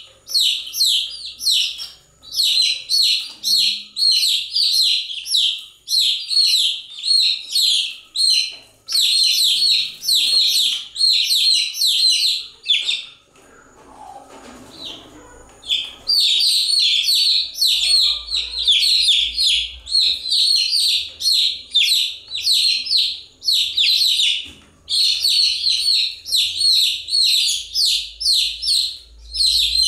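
Baby chicks peeping continuously in rapid, overlapping high-pitched chirps, with a lull of about three seconds near the middle.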